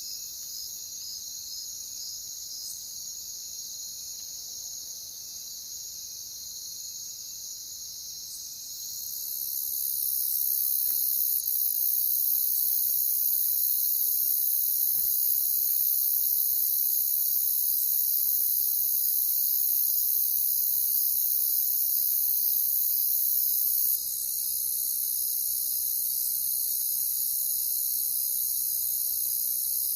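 A chorus of crickets chirping steadily with a rapid, even pulse. About nine seconds in, a higher, louder shrill trill joins, and it drops back slightly about two-thirds of the way through.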